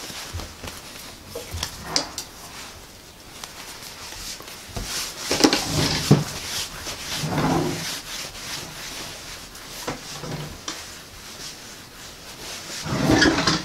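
Hands rolling ka'ak cookie dough into a long rope on a granite countertop: soft rubbing and brushing of palms and dough on stone, with scattered knocks. The loudest knocks come about five to six seconds in.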